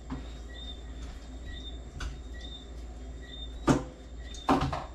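Knocks and clatter of kitchen items being handled at a counter: light taps, a sharp knock about three and a half seconds in, and a short burst of clatter near the end, over a steady low hum.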